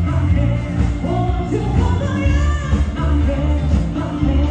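Live pop-rock band playing: a singer over bass guitar, electric guitar, drums and keyboard.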